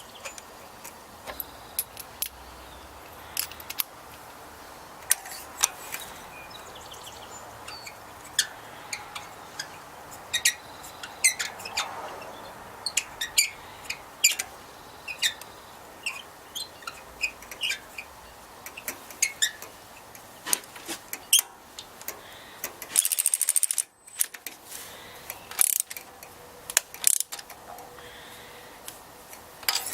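Scattered metallic clicks and clinks of hand tools and sockets while spark plugs are threaded in and snugged down on an inline-four engine, with a brief burst of high, rasping noise about 23 seconds in.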